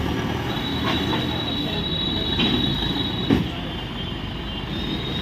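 A steady high metallic squeal of metal grinding on metal, with clanks about one, two and a half and three and a half seconds in, over a low rumble.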